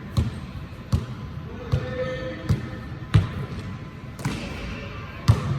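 A basketball being dribbled on a hard court: about seven uneven bounces, each a sharp thud.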